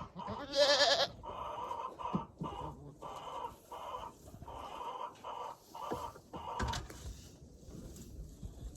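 A goat bleats once, a short wavering call about half a second in. Then come a run of short repeated sounds, about two a second, and a single sharp knock near seven seconds.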